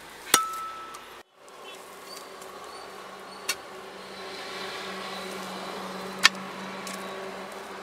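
Hand digging tools striking hard dry soil: three sharp strikes about three seconds apart, over a steady hum.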